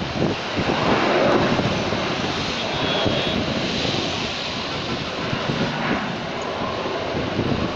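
Jet airliner engines heard at a distance, a steady rushing noise that swells slightly about a second in.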